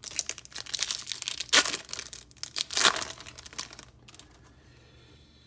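Foil wrapper of a Topps Chrome trading-card pack being torn open and crinkled, with crackling bursts over the first four seconds, the loudest about one and a half and three seconds in, then it goes quiet.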